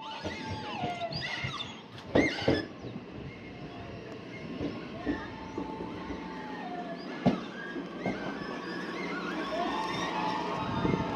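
E131-series electric train arriving at a station, with repeated wailing cries that hold near one pitch and then slide down every few seconds. The uploader takes these for a predator call played from the train to scare kyon and deer off the track. Two sharp clacks, about two seconds and seven seconds in, are the loudest moments.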